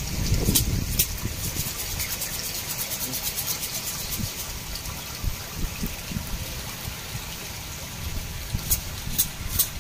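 Water splashing and sloshing as a crowd of tilapia jostle and gulp at the surface, with a few sharp smacking pops near the start and again near the end, over a low rumble.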